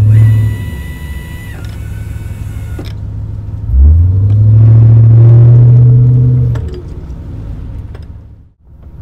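Purse seine fishing boat's engine running with a steady low hum, rising in pitch and swelling loud about four seconds in, holding there for a few seconds, then easing back. A steady high whine runs alongside in the first few seconds, dropping in pitch and stopping about three seconds in.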